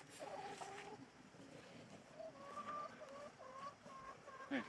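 Chickens clucking: a short drawn-out call near the start, then a run of short, evenly spaced clucks, with a sharp click shortly before the end.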